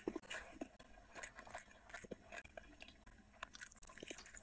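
A person chewing a mouthful of rice and curry eaten by hand: irregular soft clicks and mouth sounds, several a second.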